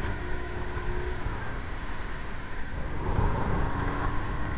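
Outboard motor of an open fishing boat running steadily at speed, with water rushing and spraying along the hull.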